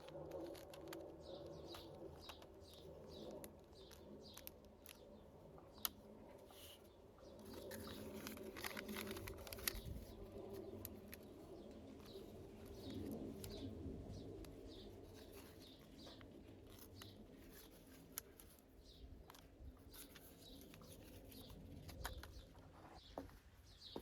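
Faint cooing of doves, with small birds chirping.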